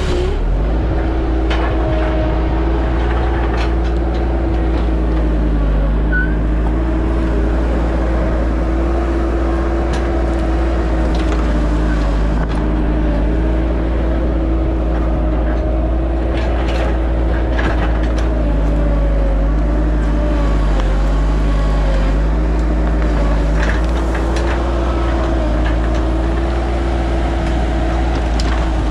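Bobcat 873 skid steer's diesel engine running steadily, its pitch sagging slightly now and then as it works, with scattered sharp cracks and knocks.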